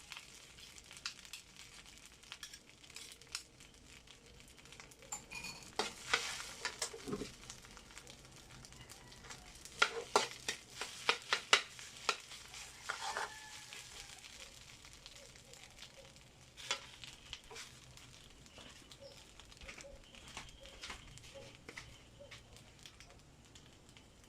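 Fried rice sizzling in a pan while being stirred, with a spatula scraping and clacking against the pan, loudest in clusters about a quarter and halfway in.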